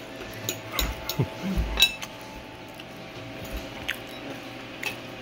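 Metal fork and spoon clinking against a glass salad bowl, several separate clinks, the sharpest a little under two seconds in.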